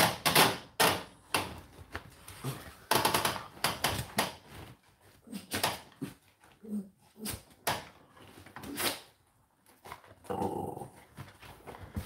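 A dog barking repeatedly, short barks at irregular intervals.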